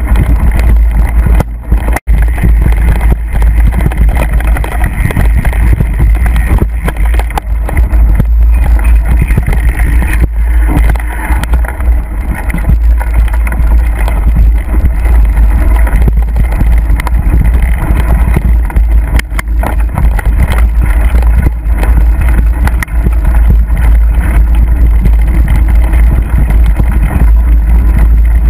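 Loud, steady rumble of wind and ride noise on a mountain bike's camera microphone as the bike runs over rough, wet trail, with small knocks from the bumps.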